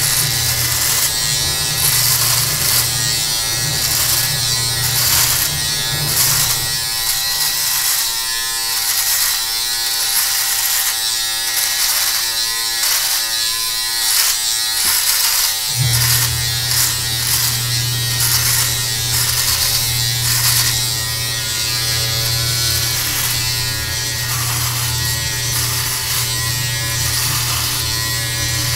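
Electric beard trimmer buzzing steadily while cutting through a full beard, with repeated short strokes as it passes through the hair. Its low hum drops away about seven seconds in and comes back abruptly about halfway through.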